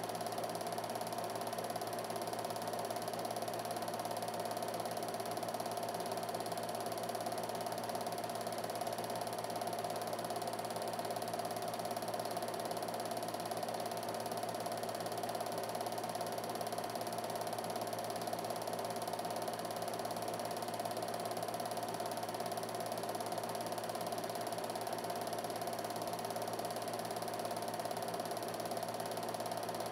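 Film projector running with a steady mechanical whir.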